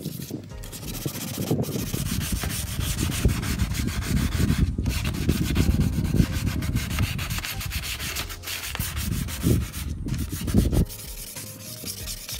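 1200-grit sandpaper rubbed by hand over a cloudy plastic headlight lens in quick back-and-forth strokes, cutting back the hazed surface as part of restoring the headlight. There are a few brief pauses, and the sanding goes quieter near the end.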